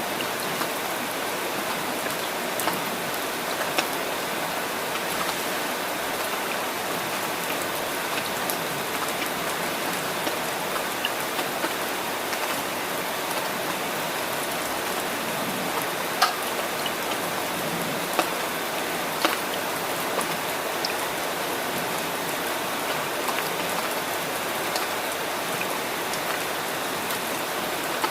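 Steady rain falling, with scattered sharp drop taps standing out from the hiss, the loudest about sixteen seconds in.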